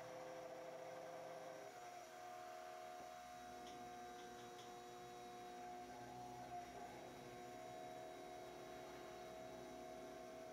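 Faint steady hum of a HONING H312 desktop CNC mill machining a pocket in 6061 aluminium with a three-flute carbide end mill at 5700 rpm. It is several whining tones held level, which shift in pitch about two seconds in and again near seven seconds.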